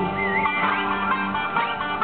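Greek zeibekiko dance music, led by a plucked string instrument playing a sliding melody over sustained bass notes.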